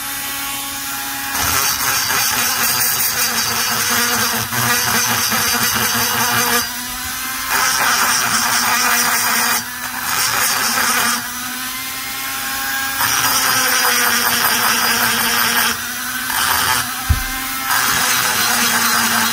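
High-speed handheld rotary grinder running with a steady whine while its bit cuts into the intake port of an Echo CS-670 chainsaw's aluminium cylinder. The grinding noise swells each time the bit bears on the metal and eases off in between, every couple of seconds; this is porting work that roughens the bottom of the intake and removes casting marks. There is one short knock near the end.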